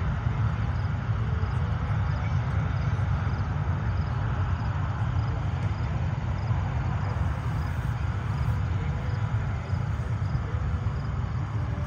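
Steady distant rumble of aircraft engines as planes taxi on the airfield.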